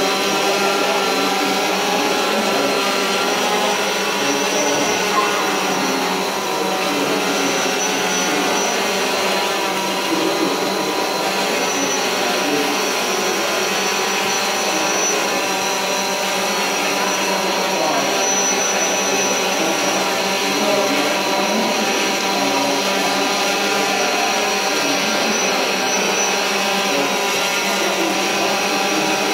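DJI Phantom 4 quadcopter hovering, its four motors and propellers giving a steady multi-toned buzz that wavers slightly in pitch as the drone holds position.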